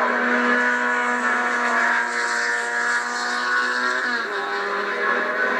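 Race car engine running at a steady high pitch that drops about four seconds in. It is heard as a recording played back through a television.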